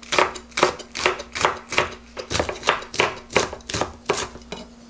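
Kitchen knife chopping a Korean leek (daepa) into thin slices on a wooden cutting board: steady, even chops about three a second, which stop shortly before the end.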